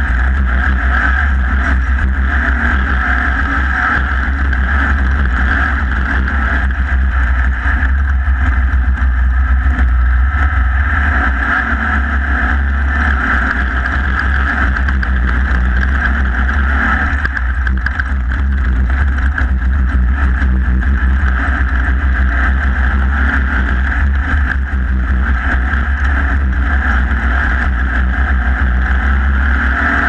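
Off-road race car's engine running steadily at racing speed, heard close up from the front of the car, with wind rumbling on the microphone.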